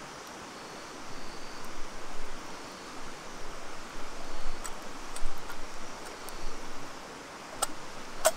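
Small wood campfire crackling, with a few sharp pops; the loudest comes near the end. Under it is a steady rushing hiss.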